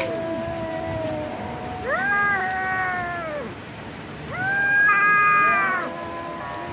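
Kitten meowing in long, drawn-out calls while eating raw chicken from a hand: the end of one call, then two more full calls.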